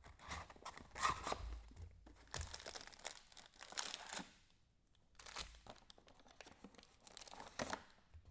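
Packaging of a Panini Mosaic football card box being torn open and crinkled, in about four separate spells of tearing and crinkling.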